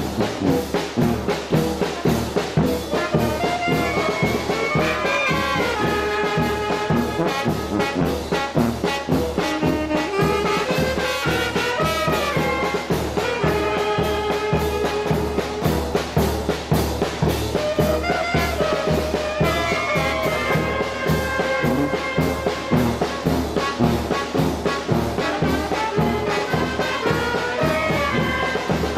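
Mexican village brass band (banda) playing a dance tune: trumpets, saxophones and tuba carrying the melody over a steady beat.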